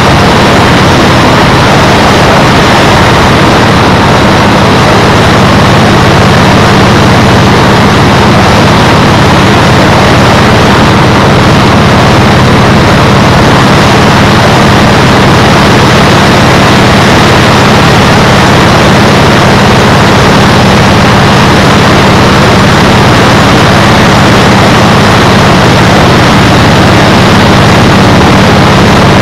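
Loud wind noise rushing over the camera microphone at riding speed, with a motorcycle engine running at a steady pace underneath.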